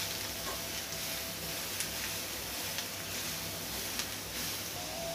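Grated carrot and onion frying in oil and ghee in a metal kadai: a soft, steady sizzle while being stirred, with a few light clicks against the pan.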